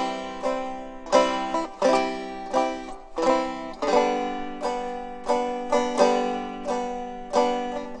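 Background music: a plucked string instrument picking a lively tune, about two notes a second, each note ringing and fading.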